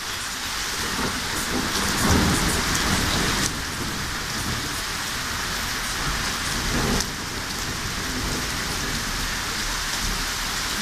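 Steady rain falling, with a low rumble of thunder about two seconds in and a weaker swell of it near the end.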